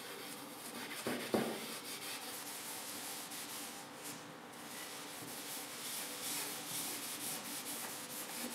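Cloth rubbing and scrubbing over the rusty steel blade of a mattock head, a continuous scratchy wiping sound, with a couple of knocks about a second in.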